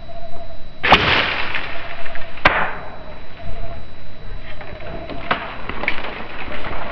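A bow shot: a sharp crack about a second in with a short rush of noise fading after it, then a second sharp crack a second and a half later, followed by fainter scattered clicks.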